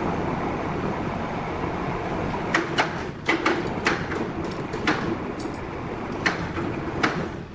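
Sawmill machinery running steadily, with irregular sharp clacks and knocks starting about two and a half seconds in.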